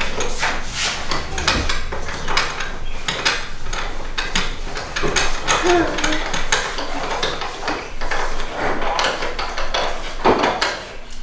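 An Allen key working the bolt in a roof crossbar's foot mount: a string of light metallic clicks and taps, a few a second, as the key turns and knocks against the bracket.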